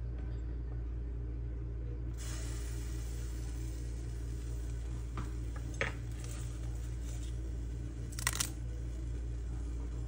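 Steady low appliance hum, with a few short light clicks: dried chillies and garlic paste dropped into a clay tagine, once about six seconds in and twice in quick succession a couple of seconds later.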